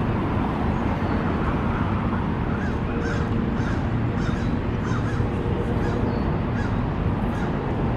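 A bird giving a rapid run of short, harsh calls, starting a couple of seconds in, over a steady background of outdoor noise.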